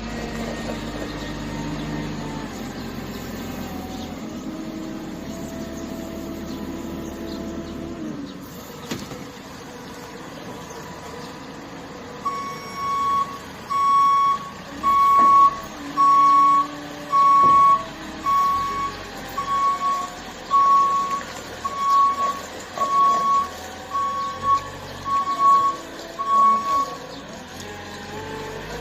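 Work vehicle's engine running with shifts in pitch. About twelve seconds in, its reversing alarm starts beeping, roughly once a second, more than a dozen times, over a low engine sound.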